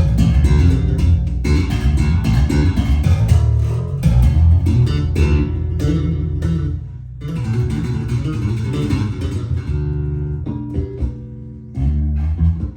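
Fodera Emperor II Elite electric bass played solo in a fast run of plucked notes, with a deep low end and a crisp, bright attack on each note. The low notes drop out briefly about halfway through and again near the end.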